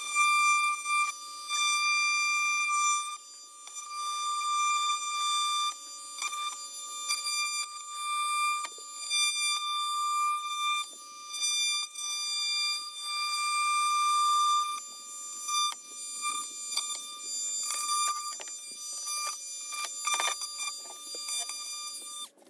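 Milwaukee oscillating multi-tool plunge-cutting a rectangular receptacle opening in a glued-up wooden vanity top. It makes a steady, high buzzing whine whose pitch holds while it grows louder and softer again and again as the blade bites in and eases off.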